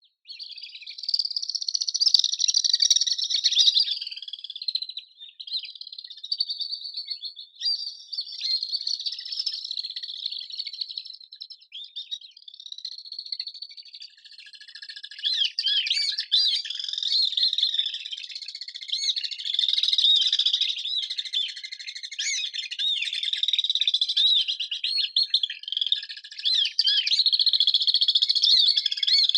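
Swifts calling with rapid, shrill, high-pitched trilling calls, several birds overlapping and growing denser about halfway through.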